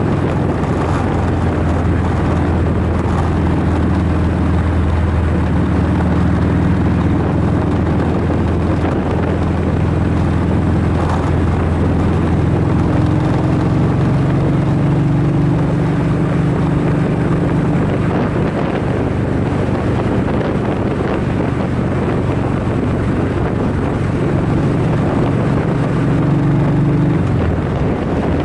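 A vehicle's engine running steadily at road speed under wind and road noise, its pitch drifting slightly and shifting a little before the end.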